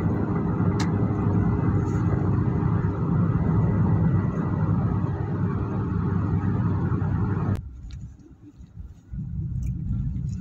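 Steady road and engine noise inside a car cruising on a motorway. About seven and a half seconds in it cuts off abruptly to a much quieter low car-interior hum on a city street.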